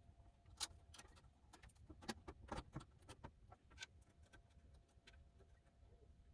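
Faint, scattered light clicks and taps, as of small hardware and computer-case parts being handled, with a few slightly louder knocks in the first four seconds.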